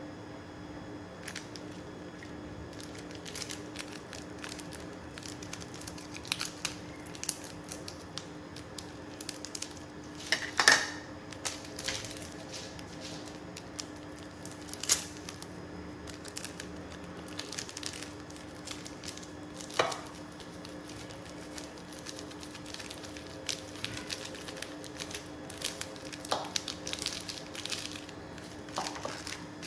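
Knife and utensil clicking, tapping and scraping against a bowl as sausage is cut up over noodles, in scattered irregular strokes with a few louder knocks, over a steady low hum.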